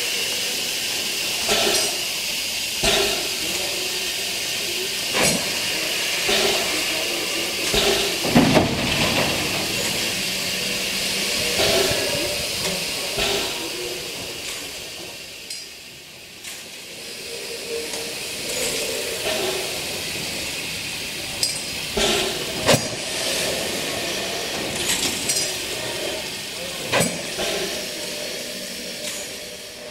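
Steam locomotives standing in steam, hissing steadily, with scattered sharp metallic clinks and knocks.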